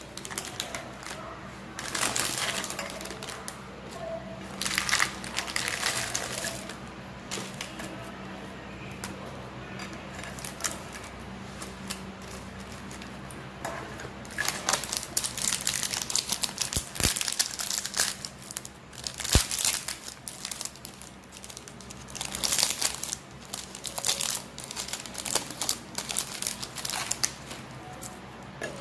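Plastic wrapper of a Dukes Waffy strawberry wafer pack crinkling in irregular bursts as it is handled and opened, with two sharp clicks in the second half.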